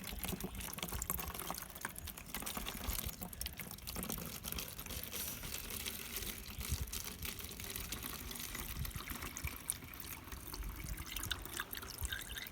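Water pouring from a bottle into a mixing tub, a steady splashing trickle with small drips and ticks, as the water for the hummingbird nectar is filled in.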